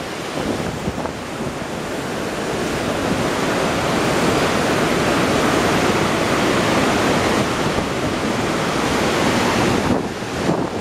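Whitewater rapids of the Magog River in high spring flow churning through the gorge: a steady, loud rushing roar that swells a little in the middle and dips briefly near the end.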